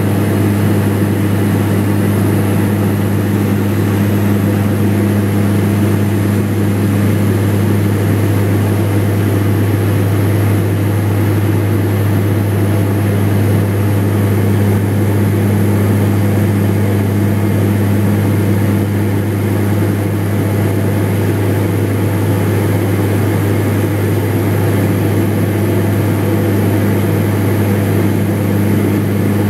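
Aircraft cabin noise in level flight: the engines run in a steady drone with a strong, unchanging low hum.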